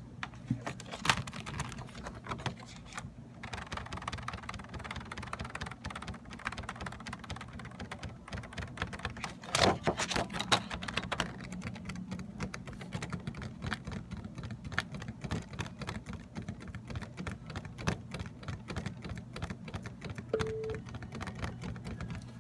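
Fast, continuous typing on a Dell computer keyboard, the keys clicking in quick runs, with a louder flurry of strokes about ten seconds in. A steady low hum runs underneath.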